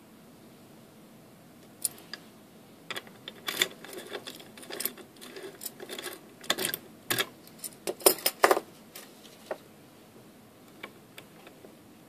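Light metallic clicks and rattles from a key and tools being handled at a Lotus euro-profile lock cylinder held in a vise. They come as an irregular run of sharp clicks, thickest from about four to nine seconds in, with a few faint ticks near the end.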